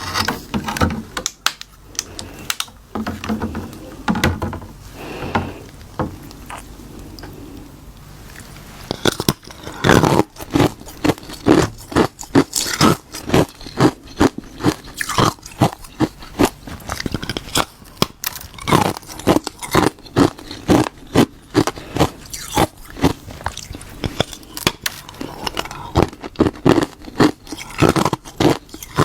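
A person biting and chewing hard, brittle ice close to the microphone. The crunches are sparse and quieter at first, then from about nine seconds in come thick and loud, several sharp cracks a second.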